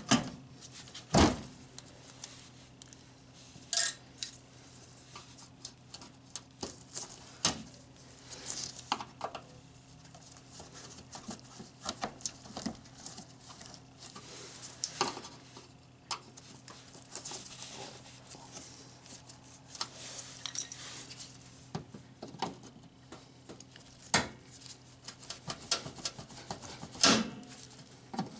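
Irregular clicks, knocks and small clinks of a hand tool and plastic fasteners being worked loose under a 2003 Honda Civic's front bumper cover. The sharpest knocks come about a second in, at about four seconds, and twice near the end, over a faint steady hum.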